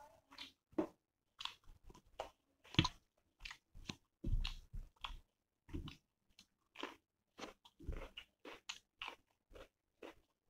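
A person chewing and biting close to the microphone: uneven crunches and mouth clicks a few times a second, with crunchy bites of raw salad.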